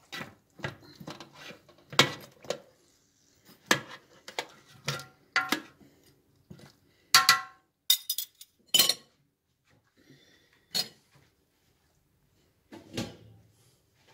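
A metal spoon clinking, knocking and scraping against a black enamel roasting pan of roast goat and potatoes: a string of separate clinks, some ringing briefly.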